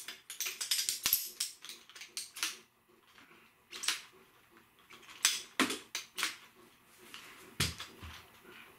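Aluminium shock-corded poles of a Helinox Chair One frame clicking and clacking as they snap together and seat into the hub. A quick run of clicks is followed by a pause about three seconds in, then a few separate, louder knocks.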